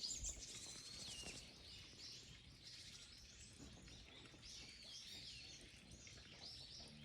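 Faint birdsong: several small birds chirping and calling over and over, with a faint steady outdoor background noise underneath.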